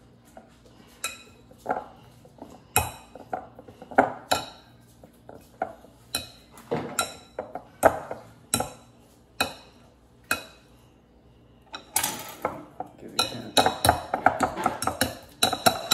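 Metal potato masher clinking against a glass mixing bowl while boiled sweet potato is mashed. The knocks come about once a second at first, pause briefly, then turn faster and busier in the last few seconds.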